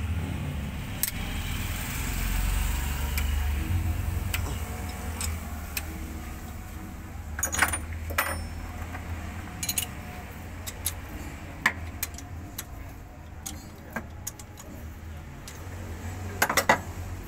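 Socket wrench turning an old cylinder head bolt into an engine block's damaged bolt hole, used as a makeshift tap to recut the thread: irregular metallic clicks and clinks, with a few sharper clusters. A low steady hum runs underneath.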